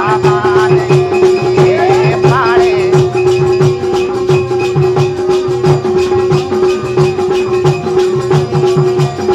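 Rural Hindi devotional folk music (Devi geet, jas): a drum keeps a quick even beat under rattling jingle percussion and one steady held drone note. There are a few sung phrases in the first couple of seconds, and the rest is instrumental.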